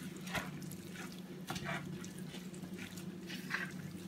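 Hands kneading and mixing a moist, oily stuffing of rice, chickpeas and herbs in a bowl: soft, irregular squelches over a steady low hum.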